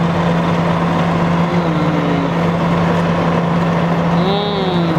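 Steady low hum and rumble of a car heard from inside its cabin, with the vehicle running. Over it, two short hummed voice sounds, one near the middle and one near the end.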